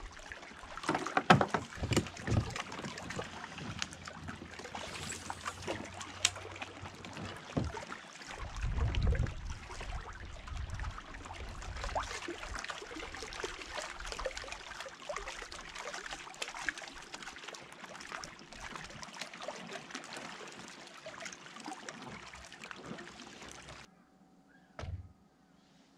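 Water washing around a fishing kayak, with frequent knocks and clatter against the hull and gear on board. It drops away suddenly near the end, leaving a quieter background and one more knock.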